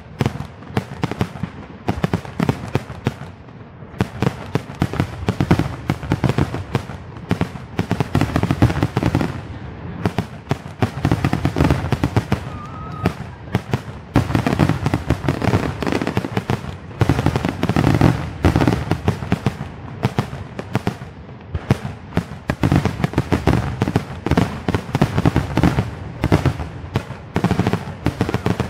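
Aerial fireworks going off in a rapid, continuous barrage: shell bursts and crackling bangs, several a second, with heavy low booms throughout.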